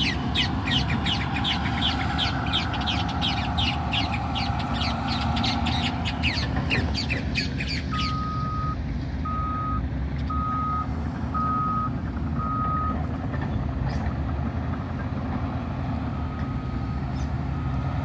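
Earthmoving machines on a construction site running with a steady low engine rumble. A reversing alarm beeps five times in a row about halfway through, and twice more faintly near the end. A bird chatters in rapid, evenly spaced chirps over the first several seconds.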